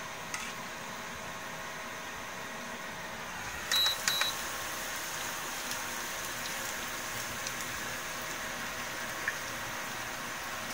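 Onion-and-carrot tempura fritters frying in shallow oil in a frying pan: a steady sizzle, a little louder after about four seconds. Two short high beeps sound about four seconds in.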